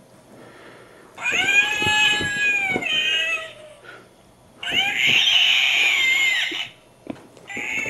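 Halloween plush toy screeching, a shrill wavering cry. It sounds three times: two screeches of about two seconds each, and a third that starts near the end.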